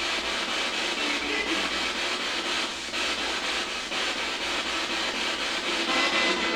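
Handheld spirit box sweeping rapidly through radio stations: a steady rasp of radio static with brief fragments of broadcast sound in it.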